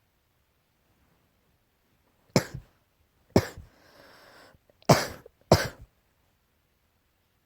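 Four short, sharp coughs, an allergy cough: two about a second apart, a drawn-in breath, then two more in quick succession.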